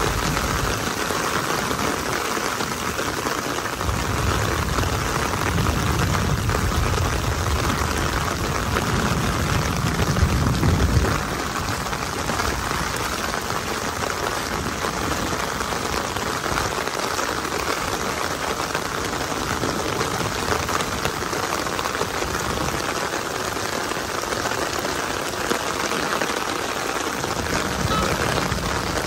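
Heavy rain falling steadily, an even hiss. A low rumble comes and goes through the first ten seconds or so and cuts off suddenly.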